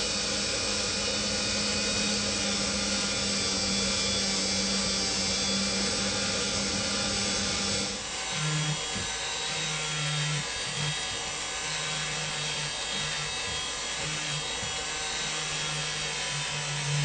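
A small motorised workshop tool running, a steady hum over hiss. About halfway through the sound changes: a lower hum comes and goes again and again.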